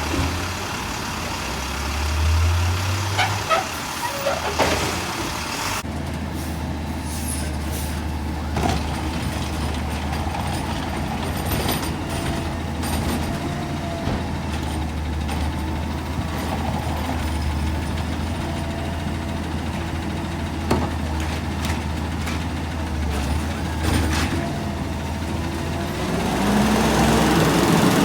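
Garbage truck's diesel engine running at idle, briefly revving about two seconds in. A few sharp metallic clanks come around three to five seconds, and the engine speeds up again near the end.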